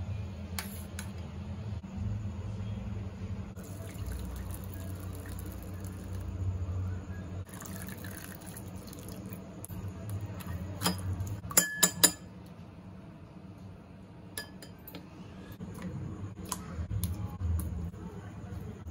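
Cooked sago pearls drained through a metal mesh strainer set over a glass bowl: a brief pour of liquid, then a quick run of sharp clinks of the strainer and spatula against the glass, over a steady low hum.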